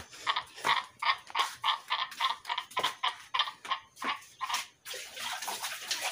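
Pigs feeding, a rhythmic slurping about three times a second, then water running steadily from a hose near the end.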